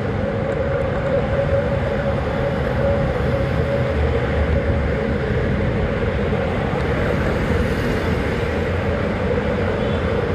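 Steady wind and road noise from riding a bicycle along an asphalt road, with a steady mid-pitched hum running under it.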